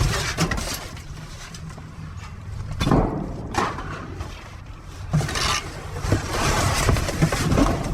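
Someone rummaging through debris in a dumpster: irregular scraping, rustling and knocks of things being shifted and handled, over a steady low rumble.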